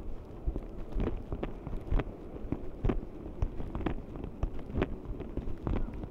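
Footsteps on a hard tiled floor, about two steps a second, over the low hum of a large hall.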